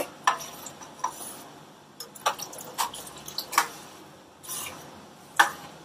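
Metal ladle stirring a thin, watery gravy in a steel pot, with scattered light clinks of metal on metal and a sharper clink near the end.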